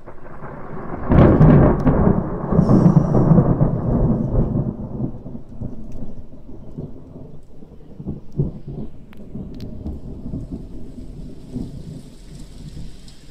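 A loud clap of thunder that breaks sharply about a second in, then rolls and rumbles, slowly dying away over the next ten seconds.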